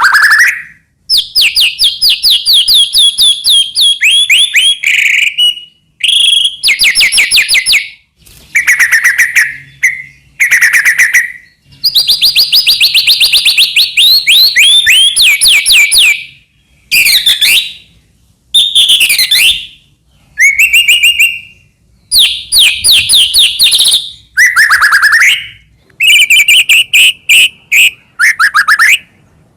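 White-rumped shama singing loudly in phrases of fast repeated notes and sweeping whistles, with short pauses between phrases.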